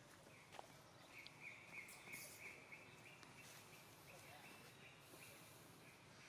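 Faint outdoor ambience: a high, evenly pulsed chirping, about four to five pulses a second, that stops and starts over a low steady hiss, with a few faint clicks.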